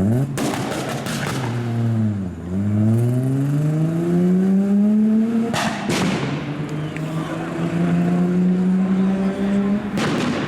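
A tuned car's engine revving and pulling hard through the gears, its pitch climbing steadily in each gear. A rapid string of exhaust pops comes in the first second or so, and sharp exhaust bangs come at the upshifts, about halfway through and again near the end.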